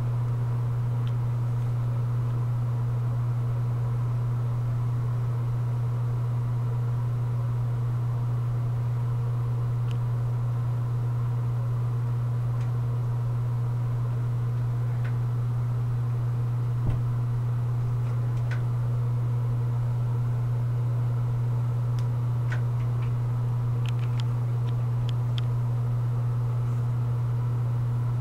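A steady low hum with fainter higher overtones, unchanging in level, with a few faint clicks and one soft thump about seventeen seconds in.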